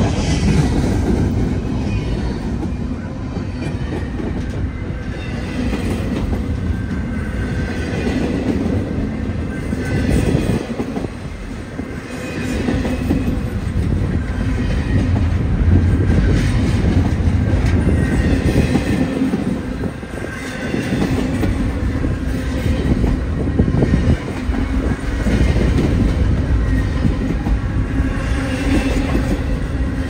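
Long freight train's cars rolling past close by: a steady heavy rumble with the wheels clacking rhythmically over the rail joints.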